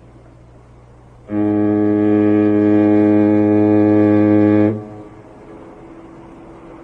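Ship's horn sounding one long, steady, low blast of about three seconds, which dips slightly in pitch as it cuts off.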